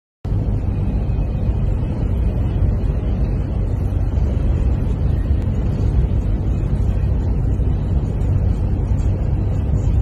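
Steady low rumble heard from inside a vehicle's cabin in a blizzard: engine and road noise mixed with wind buffeting the car.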